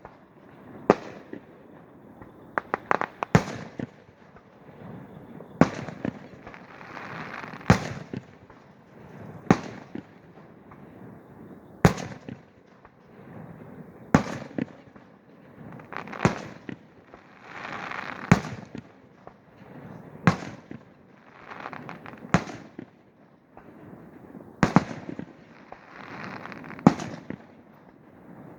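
Fireworks display: sharp firework booms about one every two seconds, each trailing off in a fading echo, with a quick run of several bangs about three seconds in.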